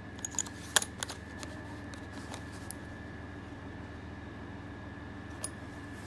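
Stainless steel keychain multitool and its ring and carabiner clinking as they are handled: a quick cluster of metal clicks in the first second and a half, then a single click near the end, over a steady faint hum.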